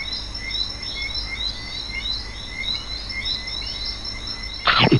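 Nature-ambience chirping, about three short chirps a second, over a steady high insect-like drone. Near the end, one quick falling whoosh sweeps from high to low and is the loudest sound.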